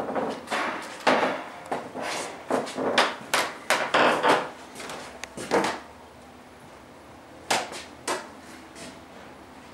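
A quick, irregular run of sharp knocks and clatters for about six seconds, then a lull and two more knocks a little over half a second apart.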